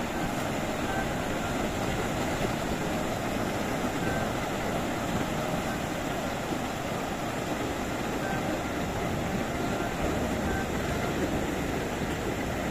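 Steady wash of small surf breaking along the shore, with wind rumbling on the microphone.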